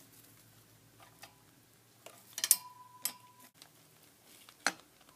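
Guinea pigs chewing at a treat toy of cardboard tube rings and willow sticks: scattered sharp crunches and clicks, the loudest cluster about halfway in. A faint steady tone sounds briefly in the middle.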